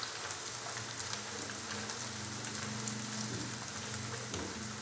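Onions, ginger-garlic paste and whole spices sizzling in hot oil in a kadai as they are stirred and lightly roasted: a steady crackling hiss.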